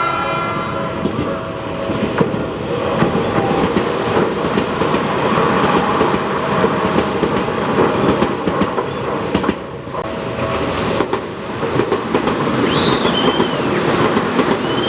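Tokyu Oimachi Line commuter train passing over a level crossing, its wheels clattering steadily over the rail joints while the crossing's warning signal sounds. A short horn blast comes in the first second, and a few brief high wheel squeals come near the end.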